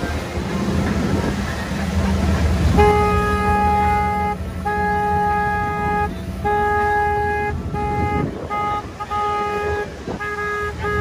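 Boat horn sounding a string of long honks one after another, starting about three seconds in, over wind and water rushing past a moving motorboat.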